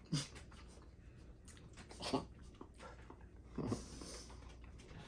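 Three short, muffled vocal sounds about a second and a half to two seconds apart, over faint scattered clicks and rustling.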